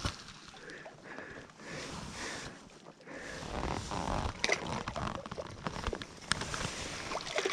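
Small water splashes and knocks at the lake edge as a trout is released by hand in the shallows, with wind rumbling on the microphone. The sharp splashes and knocks come mostly in the second half.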